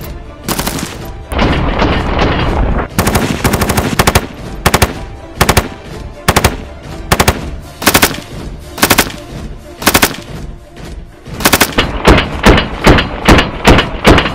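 Gunfire from a semi-automatic RPD light machine gun in 7.62×39 mm: a fast string of shots about a second and a half in, then spaced single shots and short strings, with quicker runs of shots near the end.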